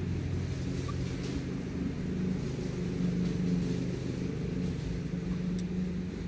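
A steady low engine drone, an even hum that swells slightly about halfway through, with a few faint clicks over it.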